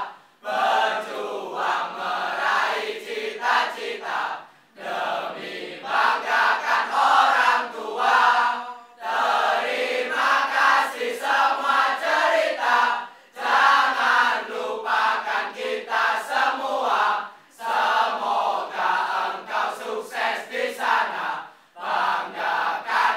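A group of voices chanting together in unison, in repeated phrases with a short break about every four seconds.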